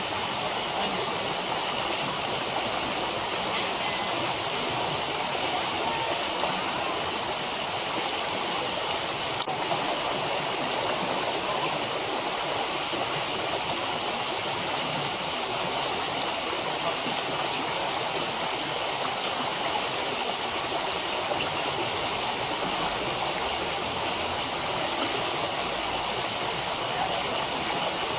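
Steady rush of flowing water, a stream or waterfall running without a break.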